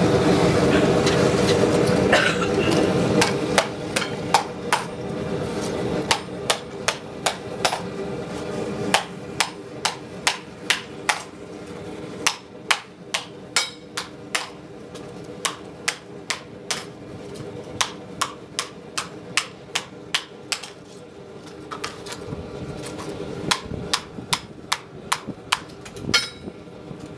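Blacksmith's hammer striking a hot sheet-metal disc, dishing it over a round form on the anvil to shape a frying pan. The hammer blows fall steadily at about two a second, with a short pause near the end. At first there is the steady rush of a gas forge running.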